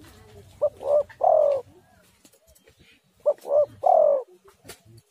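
Spotted dove (tekukur) cooing: two phrases about two and a half seconds apart. Each phrase is a short note, a second rising-and-falling note, then a longer, falling coo.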